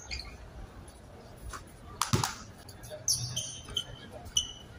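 Short, high-pitched basketball sneaker squeaks on the court surface, with one basketball bounce about two seconds in.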